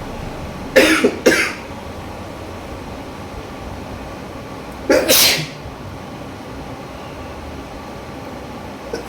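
A person sneezing, set off by tickling the inside of the nose with a twisted strip of paper: two sneezes close together about a second in, another around five seconds in, and one more at the very end.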